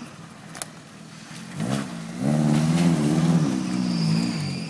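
Maruti Suzuki Gypsy engine revving hard under load as it climbs rough off-road ground. It comes up about two seconds in, its pitch wavering up and down, then eases off near the end.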